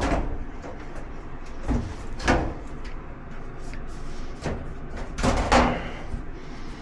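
Dryer parts being handled during disassembly: three short scraping clunks, about two to three seconds apart, with rustling handling noise in between.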